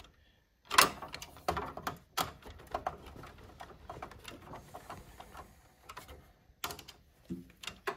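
Hand screwdriver tightening the card reader's mounting screws in a vending machine door: irregular metallic clicks and taps of the tool on the screws and steel frame, the loudest about a second in.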